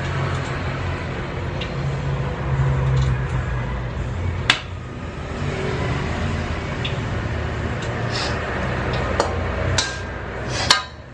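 A steady low hum with sharp clinks of kitchenware: one about four seconds in and a few more close together near the end.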